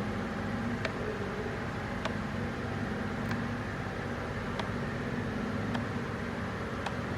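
Steady mechanical hum with a light, sharp click about once every second and a bit.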